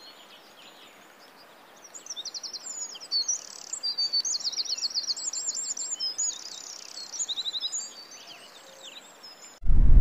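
Several small songbirds singing: high chirps and quick repeated trills, busiest in the middle. Near the end it breaks off suddenly into loud wind rumbling on the microphone.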